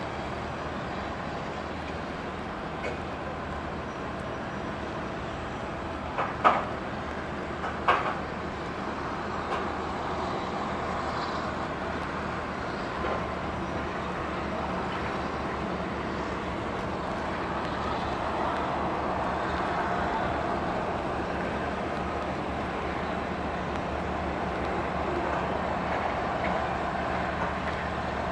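Steady hum of airport ground equipment and aircraft on the apron, with two sharp metallic clanks about six and eight seconds in, typical of cargo handling at the freighter.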